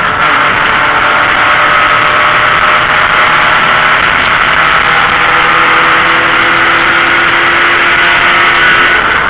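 BMW E28 528e race car's 2.7-litre eta straight-six running hard under load, its pitch climbing slowly as the car accelerates, heard from inside the cabin with a steady rush of wind and road noise.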